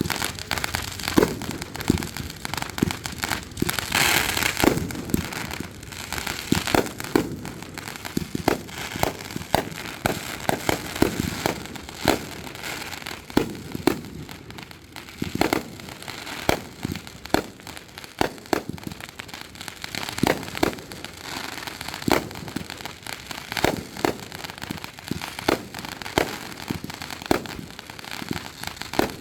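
Fireworks going off in an irregular string of sharp bangs, with a denser stretch of crackling about four seconds in.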